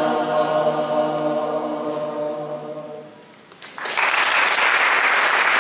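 Mixed choir holding a closing chord, which fades out about three seconds in; after a short quiet the audience breaks into applause.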